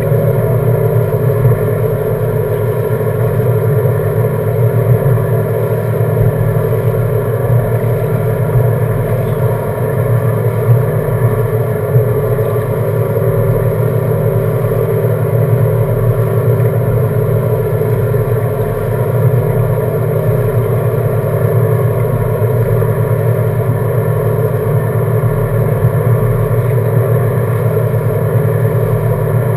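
Seven Marine 557 outboard, a supercharged GM LSA V8, at dead idle, running evenly with no revving.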